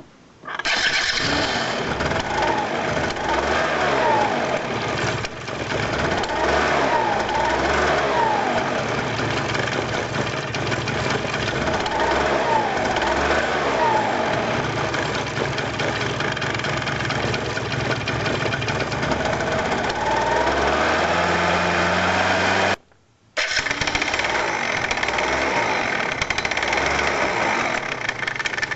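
Yamaha Grand Axis 100 scooter's two-stroke single-cylinder engine idling, its throttle blipped several times so the engine note rises and falls; the sound breaks off briefly near the end and resumes.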